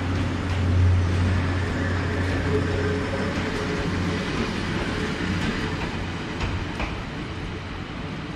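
12-series passenger coaches rolling past close by as a departing train pulls out, the wheels rumbling on the rails with a few clicks. A strong low hum fades after about four seconds, and the whole sound slowly dies away as the train moves off.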